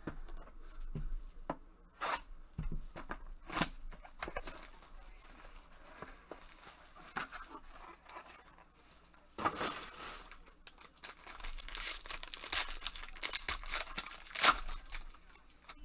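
Trading-card pack wrapper being torn open and crinkled by gloved hands: a run of sharp rips and crackles, the sharpest near the end.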